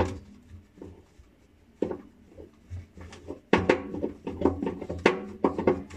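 A Samsung front-loading washer's stainless drum, turned by hand, gives a sharp knock, a few scattered clunks, and then a run of rattling knocks with a metallic ring from about halfway in. The noise comes from a cracked drum tripod (spider arm).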